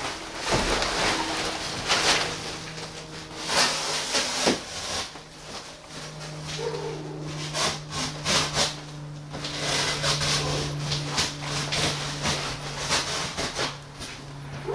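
Plastic wrapping rustling and crinkling in irregular bursts as it is pulled off a gun safe, over a steady low hum.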